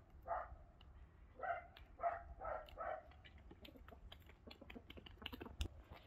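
A dog barks about five times in the first three seconds. Then come quick, light clicks and taps of a knife on a wooden cutting board.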